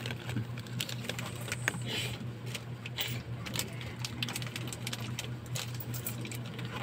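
Irregular small clicks and crinkles of fingers handling and working open a small plastic wrapper, over a steady low hum.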